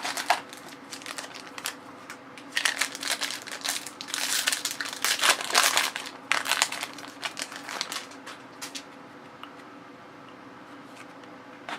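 Crinkly foil trading-card pack wrapper being handled and torn open, a run of short crackles that dies down a couple of seconds before the end.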